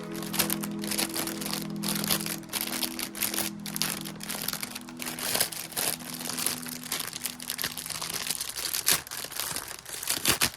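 Blind-box packaging crinkling and crackling as it is handled and torn open by hand, over soft background music with held notes that fade out about eight seconds in.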